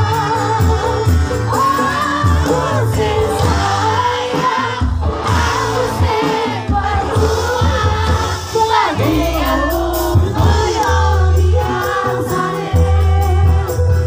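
Loud live band music with a heavy bass and a lead vocal singing a Javanese song, and many crowd voices singing along.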